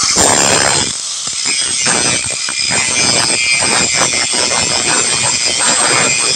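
Makita GA4031 720 W 100 mm angle grinder running at speed with its disc grinding into a metal plate: a steady high whine under a harsh, rough grinding noise.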